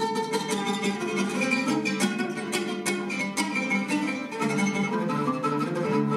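Oud played live in a run of quick plucked notes.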